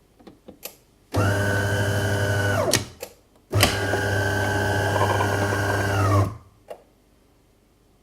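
Coffee machine running in two bursts, the first about a second and a half long and the second about two and a half seconds, each a steady mechanical hum that drops in pitch as it winds down. A few light clicks come before, between and after the runs.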